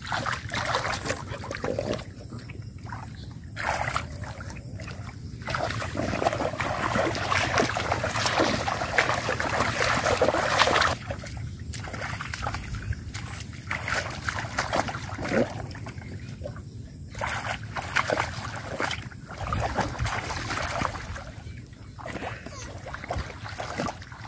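Shallow muddy water splashing and sloshing as a person wades through it and hauls catfish and a plastic basin. The splashing comes in uneven surges, with a longer unbroken stretch in the middle.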